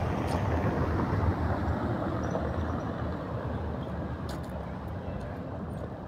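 Low street rumble of passing traffic, slowly fading.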